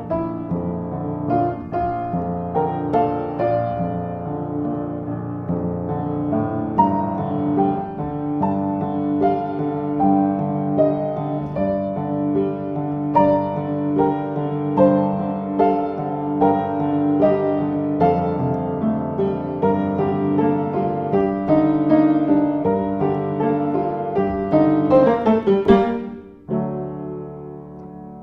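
Film score music led by piano, with many sustained notes and chords. Near the end it rises in a quick sweep and then drops suddenly to a quieter passage.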